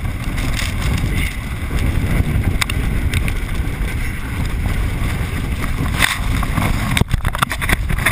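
Wind buffeting the microphone of an action camera mounted on an inflatable tube towed at speed over water, with water rushing and spraying around the tube. Near the end, a quick run of sharp knocks and splashes as the tube and camera get jolted.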